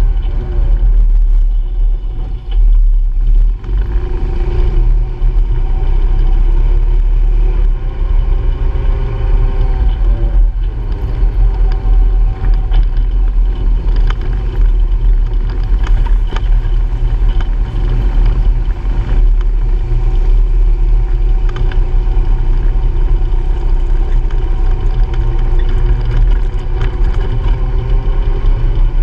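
Honda Pioneer 700-4 side-by-side driving along a dirt trail, its single-cylinder engine running with a pitch that rises and falls with speed. A heavy low rumble runs underneath, with scattered short clatters from bumps.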